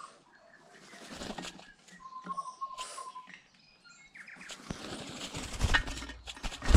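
Tui: scattered clicks and short whistles, with one held whistle about two seconds in, then loud wingbeats as more tui fly in and land. The wing noise is loudest at the very end.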